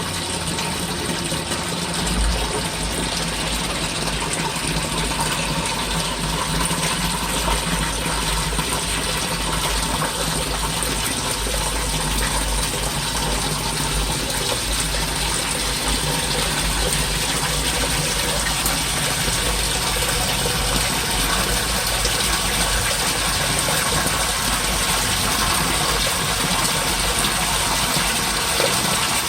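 Water running steadily through the drainage system, with a low rumble underneath from about two seconds in until near the end.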